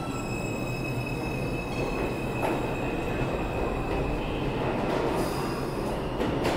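R142 subway train pulling out of the station. The electric traction motors give a steady high whine over the rumble of the wheels on the rails. The whine fades after about five seconds as the train draws away, and a couple of sharp clicks come near the end.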